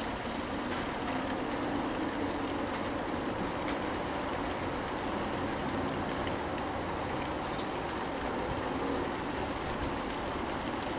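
Steady rain falling, an even hiss with scattered ticks of drops.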